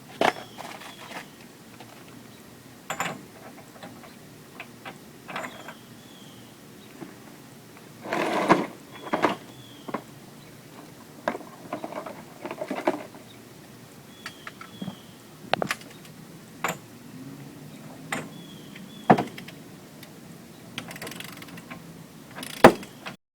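Irregular metal clinks and knocks of hand tools and a 36 mm socket at a car's rear wheel hub, with a few short rattles and quiet gaps between.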